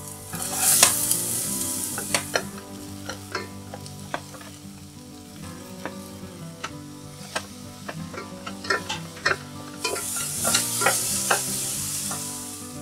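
Chopped onion and capsicum sizzling in hot oil in a stainless steel pot while a spatula stirs them, clicking and scraping against the pot. The sizzle swells twice, about a second in and again near the end.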